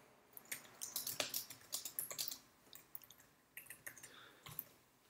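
Typing on a computer keyboard: a run of faint, uneven keystrokes with a short lull in the middle.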